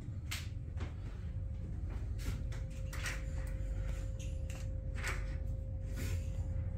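Steady low hum of the boat's machinery inside the cabin, with a faint constant tone, and scattered light clicks and rattles from wooden venetian blinds being handled.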